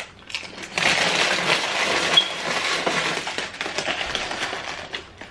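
A plastic snack bag crinkling as it is handled, a dense crackle that starts about a second in and fades after about three seconds.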